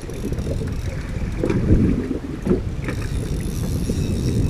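Wind buffeting the microphone on an open boat, a steady low rumble, with a few faint knocks from about halfway through.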